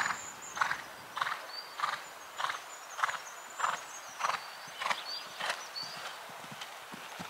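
Horse cantering on a sand arena: a steady stride beat a little under twice a second.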